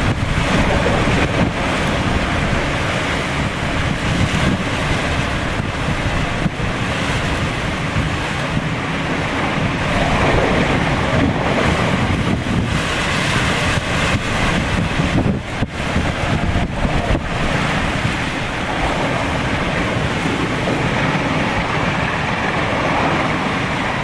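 Hurricane wind gusting through cabbage palms, the fronds thrashing and rustling, with heavy wind buffeting on the microphone.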